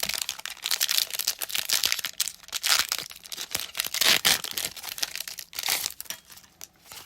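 Foil Pokémon booster pack wrappers crinkling and tearing as they are handled and ripped open, a dense run of crackles and sharp snaps.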